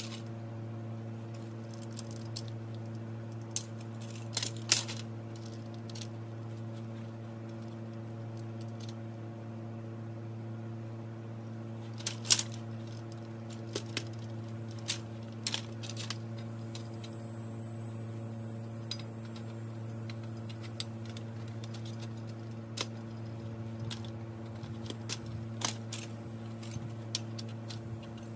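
Metal tubing and parts of an A-frame blind's frame clinking and knocking now and then as they are handled and fitted together, a few sharper knocks among them, over a steady low hum.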